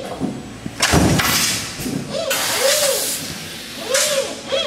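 Stamping press with a one-bar transfer system running through its automatic cycle: the transfer drive gives short rising-and-falling whines, and twice, about three seconds apart, a press stroke comes as a thud with a burst of hiss.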